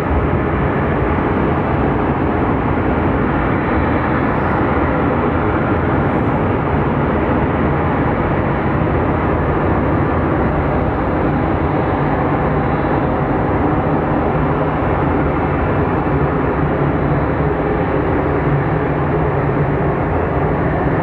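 Jet engines of a Boeing 737-800, its CFM56 turbofans running at taxi power: a steady, even rush of engine noise.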